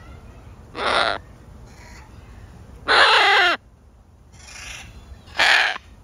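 Macaw squawking: three loud calls about two seconds apart, the middle one the longest, with a fainter call between the last two.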